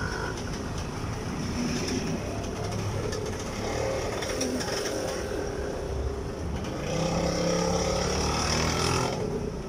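Road traffic: vehicle engines running steadily, with a low engine hum that grows louder for a couple of seconds near the end.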